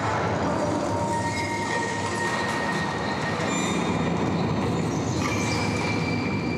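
Soundtrack of a projection-mapping show: a dense, steady rumble with sustained high metallic tones that come and go.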